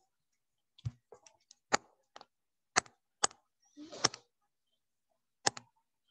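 Sharp, irregular clicks, about eight over five seconds, from the input device used to handwrite on a digital whiteboard, with a short rustle about four seconds in.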